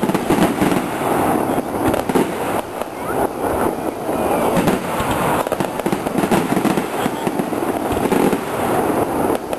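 Fireworks display: a rapid, continuous barrage of bangs and crackling from shells bursting overhead.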